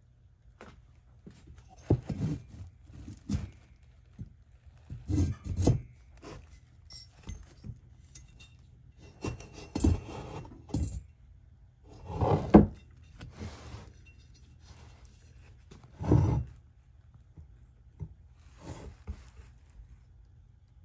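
Metal VW air-cooled engine parts being handled and set down on a workbench: irregular clinks, knocks and scrapes in about half a dozen separate bursts, the loudest about halfway through.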